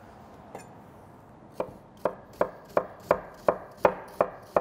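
Chef's knife slicing an onion thin on a wooden cutting board: a steady run of sharp knife taps on the board, about three a second, starting after a quiet second and a half.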